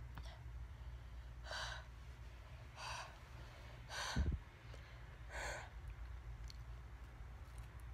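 A woman breathing hard through her mouth in four short hissing breaths, her mouth burning from very spicy Korean fire noodles. A dull low thump comes about four seconds in.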